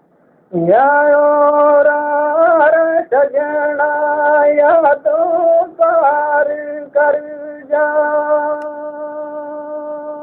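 A man singing a Gojri bait, a single voice entering about half a second in on a rising note, then long held vowel notes with small ornamental turns, broken by short pauses between phrases.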